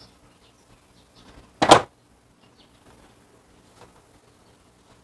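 A single sharp snip about one and a half seconds in: diagonal cutters biting through a thin insulated wire to remove its old spade connector. Faint handling ticks around it.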